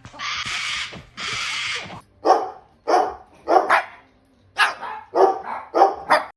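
Two long hissing noises, then a dog barking: about eight short barks, mostly in quick pairs.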